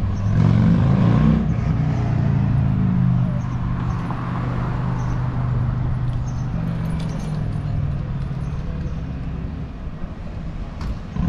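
A motor vehicle's engine on a city street, a low hum that is loudest in the first few seconds and then fades away as the vehicle moves off, over steady traffic noise.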